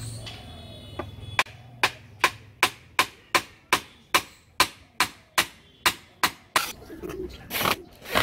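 Claw hammer striking wooden parts about fourteen times in a steady, quick rhythm, roughly two and a half blows a second.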